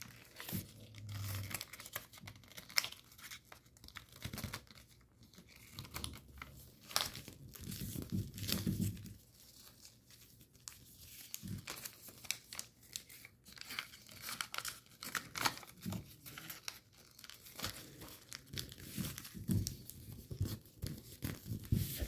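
Sheet of paper being folded and creased by hand: irregular rustling, crinkling and short crackles as the edges are mountain-folded and pressed flat.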